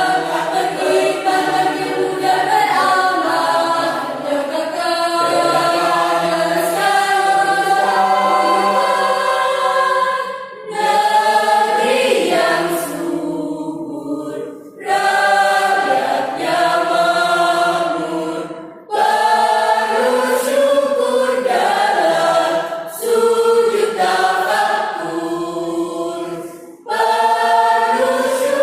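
A choir singing in several voice parts at once. Its phrases break off briefly every four seconds or so through the second half.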